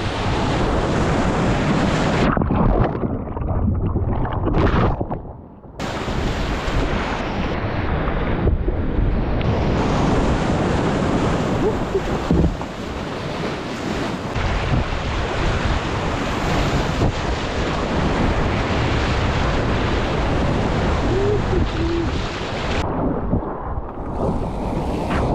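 Rushing whitewater with wind buffeting the microphone. The sound muffles and loses its hiss for a few seconds, from about two seconds in, and again near the end.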